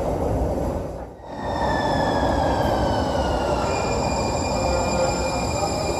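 Siemens S200 light-rail train slowing in an underground station over a steady rumble. Its whine of several tones falls in pitch as it brakes, then settles into steady high tones about halfway through.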